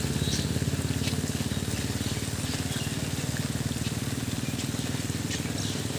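A vehicle engine idling steadily with a fast, even throb, over a steady hiss.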